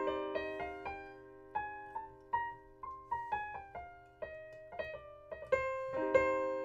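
Piano playing in A minor: a chord rings in the middle register while single notes are struck one after another above it, mostly stepping upward and then back down, and a new chord is struck near the end.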